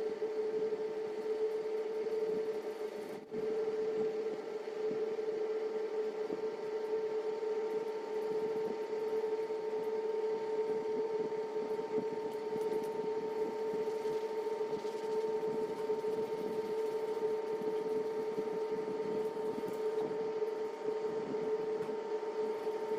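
A steady machine hum with one strong, even tone and a fainter higher one, briefly dropping out about three seconds in.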